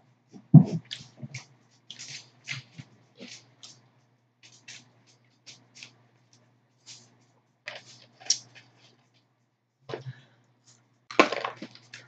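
Eating sounds: scattered short wet clicks, smacks and crackles of chewing french fries, irregular and close to the microphone. A few louder smacks come just after the start and near the end.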